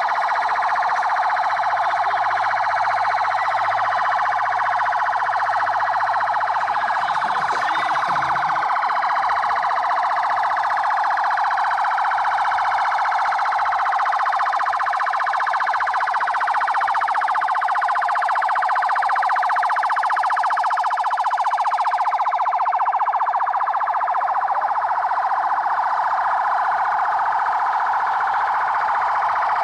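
Sirens of several police vehicles wailing at once, their rising and falling tones overlapping in a continuous, steady wall of sound.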